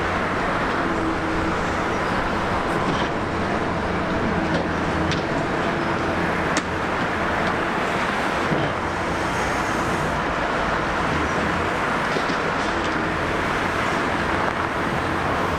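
Diesel engine of a Liebherr R 960 high-reach demolition excavator running steadily, with a few sharp cracks and clicks over it.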